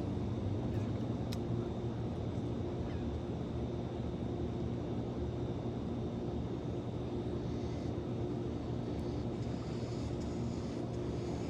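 Steady low mechanical hum from a distant motor, with a faint high whine above it.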